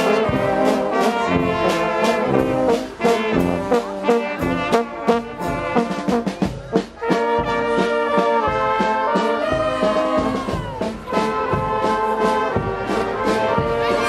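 Marching brass band playing a tune on trumpets, trombones and tubas, with snare and bass drum keeping a steady beat.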